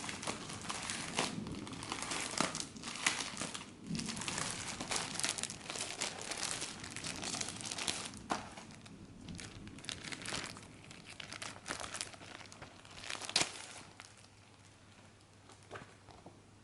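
Plastic packaging crinkling and tearing as a trading-card starter pack is unwrapped by hand: dense rustling and crackling, dying away near the end.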